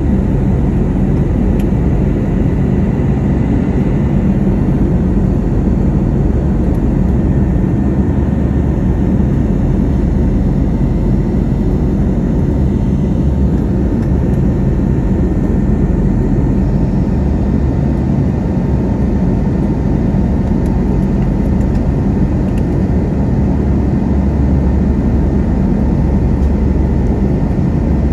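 Airbus A320neo's Pratt & Whitney PW1127G geared turbofan engines heard from inside the cabin while climbing after takeoff: a steady, loud low rumble with faint steady whining tones above it.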